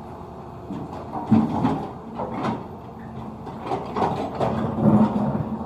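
Caterpillar 320D2 excavator running steadily while its bucket scrapes and spreads gravel aggregate, with several loud bouts of scraping and rattling stone, the loudest about a second in and near the end.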